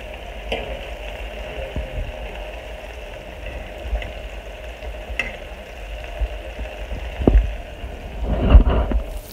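Onions, sweet peppers and tomato sizzling in a pot on a gas stove, a steady frying hiss, with a few light clinks of a fork stirring against the pot. A couple of dull knocks near the end.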